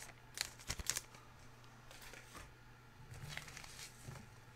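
Quiet room with faint handling noises: a few small crinkles and clicks, mostly in the first second, over a low steady hum.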